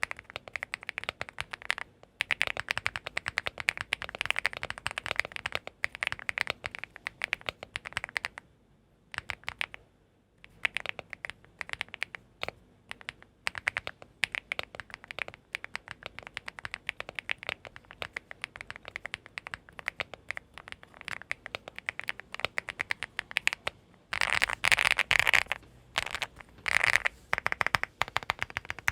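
Typing on a Leobog Hi8 mechanical keyboard with HMX EVA linear switches and PBT cherry-profile keycaps: a fast, continuous run of keystroke clacks. The typing pauses for a second or two about nine seconds in, and grows denser and louder near the end.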